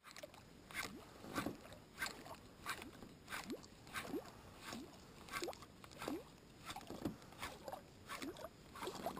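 Small waves lapping against a boat hull: a faint, irregular run of plops and gurgles, about one or two a second, many with a short rising chirp.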